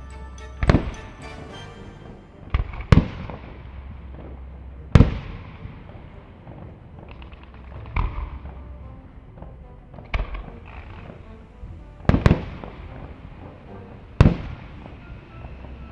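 Aerial firework shells bursting overhead: about nine sharp bangs at irregular gaps of one to two seconds, two of them nearly together about twelve seconds in, each trailing off in an echoing rumble.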